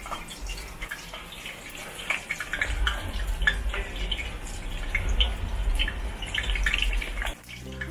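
Turon, banana spring rolls, deep-frying in hot oil: a steady sizzle full of small crackling pops, with a low rumble underneath from about a third of the way in. Music starts just before the end.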